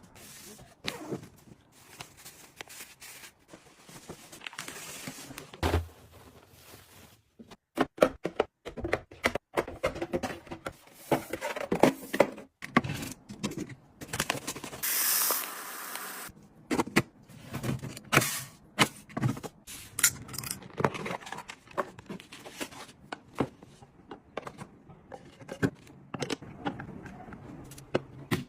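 Household items being handled and set down: an irregular run of clicks, taps and scrapes, with a short hiss about fifteen seconds in.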